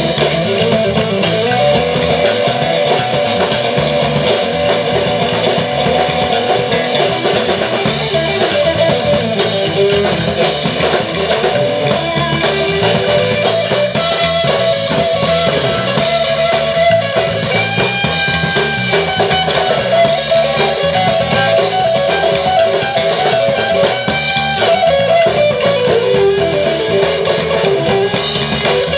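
Live rock trio playing an instrumental passage: electric guitar lines with held notes over bass guitar and a Yamaha drum kit, amplified through a stage PA.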